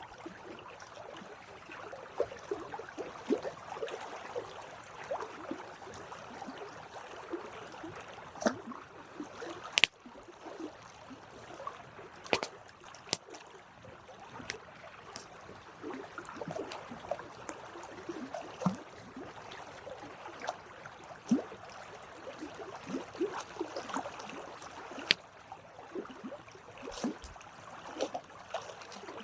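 Wood campfire burning with a steady crackle, broken by sharp, irregular pops and snaps; a few loud snaps stand out, around ten, twelve and twenty-five seconds in.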